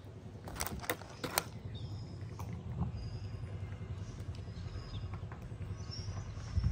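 Cats eating wet food from plastic tubs: a few sharp clicks about a second in, then soft irregular chewing, over a steady low rumble with faint high chirps.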